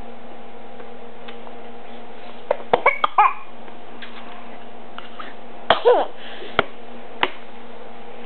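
A baby making short, cough-like vocal sounds in two brief bursts, about three seconds and six seconds in, with a few sharp clicks, over a steady low hum.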